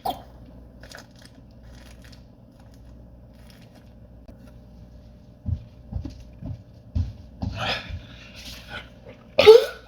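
A man trying to force a burp: a few low thumps and breathy noises, then a short, loud burp near the end. By his own account it is a failed attempt.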